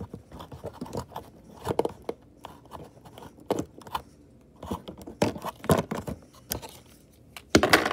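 Clear plastic blister packaging crinkling, cracking and scraping in irregular short bursts as a toy accessory is worked out of it. The loudest crackle comes near the end.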